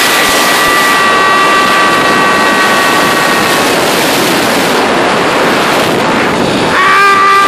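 Wind rushing over the phone's microphone during a fast zipline ride, with a steady high whine from the trolley's pulleys running along the steel cable. The whine fades a little over halfway through, then comes back about a second before the end, sweeping up in pitch and holding, slightly louder.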